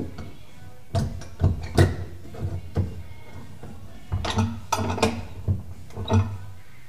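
Irregular knocks and clatters from hand work at the wooden transom of a plywood dinghy, in two short flurries, over a steady background of music.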